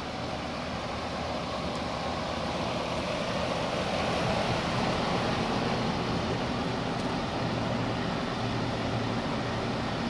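Carrier Round One heat pump outdoor unit running: a steady rush of air from its top-discharge condenser fan over a low hum. It grows a little louder about three seconds in.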